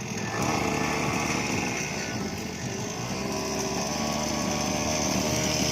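A small motor or engine running steadily, a continuous buzzing drone.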